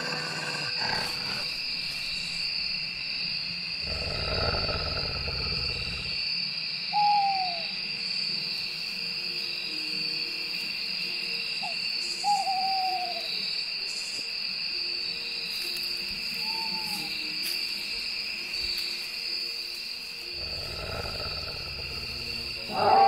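An owl hooting a few times, short hoots that fall in pitch, spaced several seconds apart, over a steady high-pitched night-woodland drone. A low rumble swells up twice.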